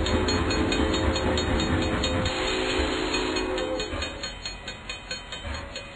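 A train passing, its horn sounding a held chord that fades out about three and a half seconds in. Under it a rumble drops away and a steady clickety-clack of wheels over rail joints, a few clicks a second, carries on more quietly as the train recedes.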